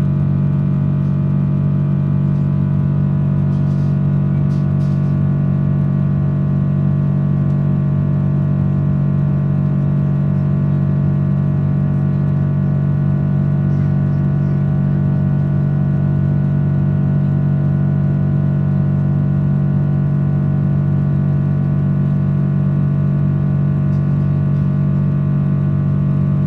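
Steady cabin drone of a Boeing 777-300 airliner: an unchanging low hum with a stack of steady tones above it and a few faint ticks.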